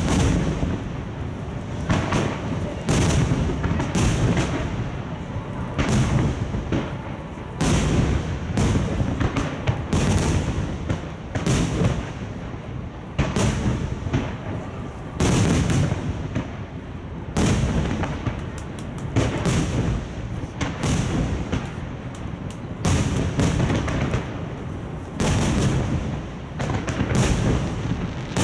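Aerial firework shells bursting one after another in a dense barrage, heavy booms coming about every second with rumble and crackle between them.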